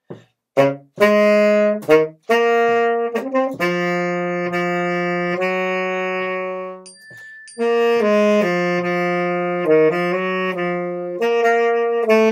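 Tenor saxophone playing a slowed-down melodic line, a run of short notes and then longer held ones, with a brief break about seven seconds in.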